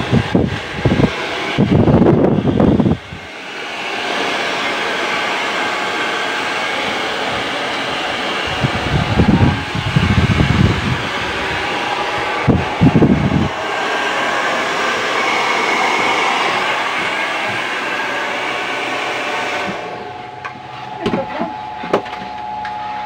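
Handheld hair dryer blowing steadily on a boy's hair, with three louder, rumbling gusts near the start and around ten and thirteen seconds in. The rushing stops about twenty seconds in, leaving a steady hum and a few clicks.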